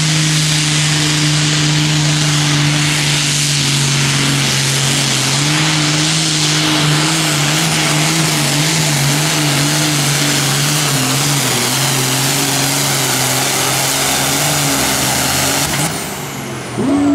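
IH 1066 pulling tractor's turbocharged six-cylinder diesel at full load, dragging the weight-transfer sled down the track on a full pull. It runs at a steady high pitch with a heavy hiss over it, rising slightly about five seconds in. The sound dips briefly just before the end.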